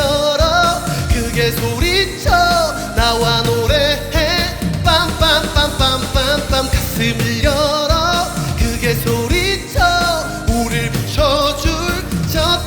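Upbeat pop-rock backing band music with a steady drum beat and a wavering lead melody line.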